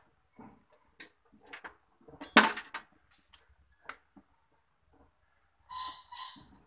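Audio cables and plugs being handled and pulled out among a sound-system rack: scattered clicks and knocks, the loudest a sharp knock about two seconds in, then two short scraping rustles near the end.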